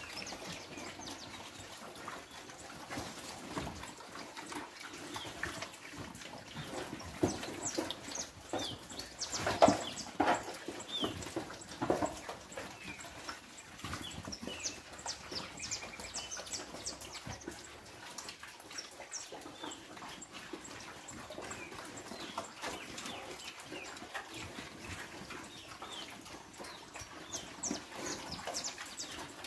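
Pigs eating wet slop from troughs: a busy run of slurping, chomping and snout smacks with grunts, loudest about ten seconds in.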